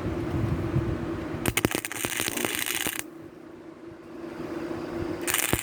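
Gasless flux-core wire welder arc crackling and spitting in two short bursts, one about a second and a half long starting about a second and a half in, and a shorter one near the end. The arc is being used to heat the steel and burn paint off it before welding. A steady low hum is heard before the first burst.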